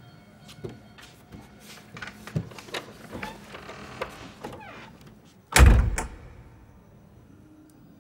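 A door shuts with a single heavy thump about five and a half seconds in. Before it come light clicks and rustles of handling.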